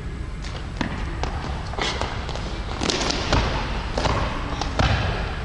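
A run of irregular dull thuds and knocks, several a second at times, over a steady background noise.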